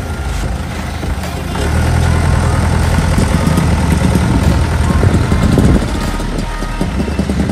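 Truck engine running, its low rumble growing louder about two seconds in and easing off again about six seconds in.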